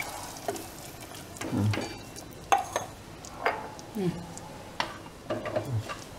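Wooden spatula stirring watery mutton bone curry in an aluminium pressure cooker. It gives several separate scraping strokes and a few sharp knocks against the metal pot.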